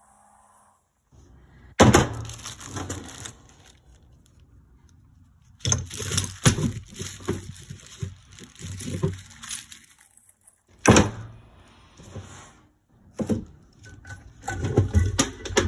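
Irregular knocks, clunks and rattles of tools and engine parts being handled on a workbench. A sharp knock about two seconds in, another near eleven seconds, and a quick run of clicks and rattles near the end.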